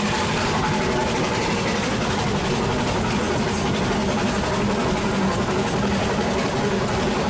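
Narrow-gauge train running steadily, heard from the carriage right behind the locomotive: an even rumble of wheels on rail with a low steady hum under it.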